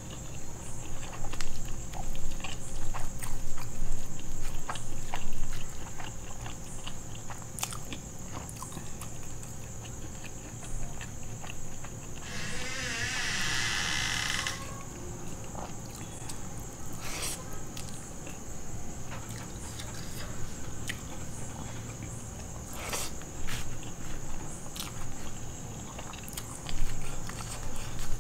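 Veg biryani being mixed with curd by hand in a foil tray and eaten with the fingers: scattered small clicks and crinkles from the rice and foil, with chewing between mouthfuls. A louder rustle lasting about two seconds comes about twelve seconds in.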